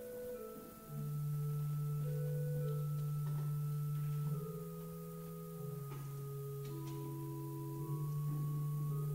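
Church organ playing soft, sustained chords on a flute-like stop, the chords shifting slowly every second or two, with a few faint clicks from movement at the altar.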